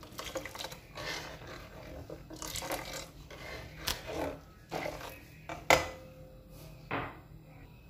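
A ladle stirring and scraping through milky tea in a steel pan, with a few knocks against the pan. The loudest knock comes about two-thirds through and rings briefly.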